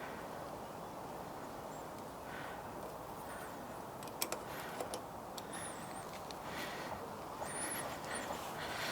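A few sharp metal clicks and clinks from bicycle crank parts and tools being handled, over a steady background hiss, with a few short high chirps in the second half.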